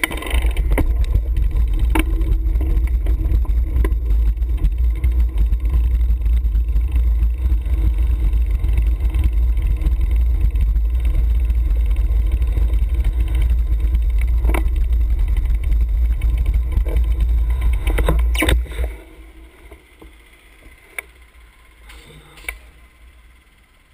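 Wind buffeting and road rumble on a handlebar-mounted camera's microphone while riding a road bicycle over paved streets, with scattered knocks from bumps. About three-quarters of the way through it drops away sharply as the bike comes to a stop, leaving a quieter background with a few light clicks.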